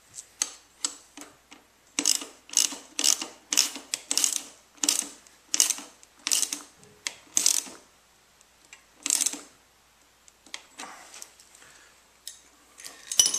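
Plastic cable ties being ratcheted tight around a motorcycle muffler: a run of quick zipping rattles, about two a second, each pull a burst of rapid clicks, slowing to a few separate pulls later on, with one sharp loud click near the end.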